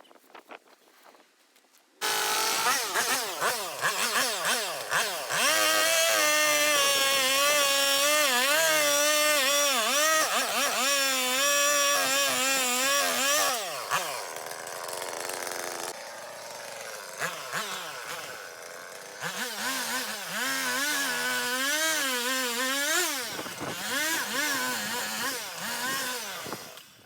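Chainsaw running at high revs with its pitch wavering up and down as it works. It comes in suddenly about two seconds in, drops back for a few seconds in the middle, then revs up again.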